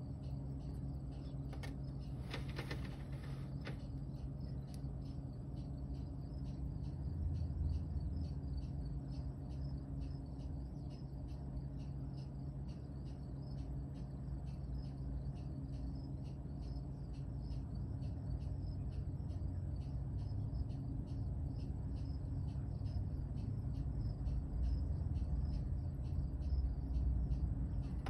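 A cricket chirping steadily, about three chirps a second, over a low steady hum. A brief burst of noise about two seconds in.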